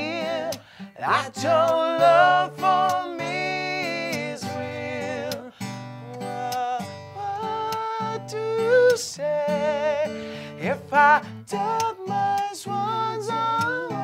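A man singing with vibrato, accompanied by an acoustic guitar played live.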